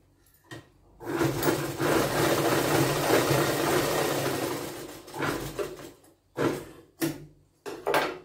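Domestic straight-stitch sewing machine running as fabric is fed through, a steady stretch of about four seconds of stitching. Several short bursts follow near the end.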